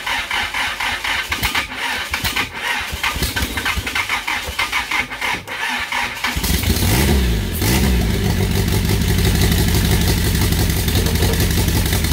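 Freshly rebuilt Mitsubishi turbo four-cylinder cranked over by the starter in an even rhythm for about six seconds, then catching, revving briefly and settling into a steady idle. It is running with no exhaust fitted, on its first start after the rebuild.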